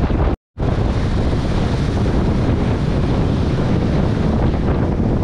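Strong wind buffeting the microphone over the rush of heavy breaking surf. The sound cuts out completely for a moment about half a second in.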